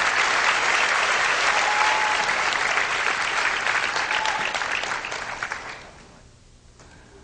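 Audience applauding: dense clapping that dies away about six seconds in.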